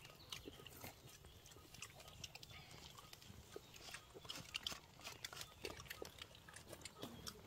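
Faint sounds of people eating with their hands: chewing and lip smacking, with scattered soft clicks.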